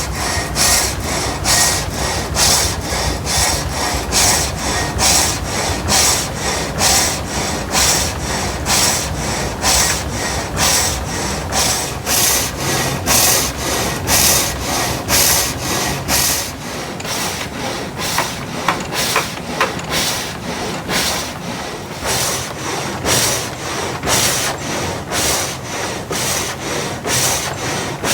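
Water-powered vertical push-pull sash saw of an old sawmill cutting through a log, a rhythmic rasping stroke about one and a half times a second. Under it runs a low rumble from the water wheel and gearing, which eases about two-thirds of the way through.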